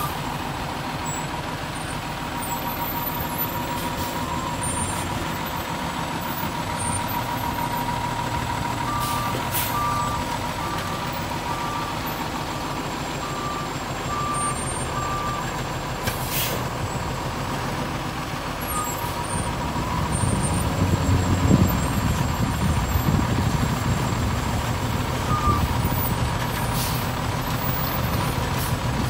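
Front-load garbage truck's diesel engine running as it manoeuvres, with a reversing alarm beeping about once a second for several seconds near the middle and a few short hisses of air from the brakes. The engine gets louder about two-thirds of the way through as the truck pulls ahead.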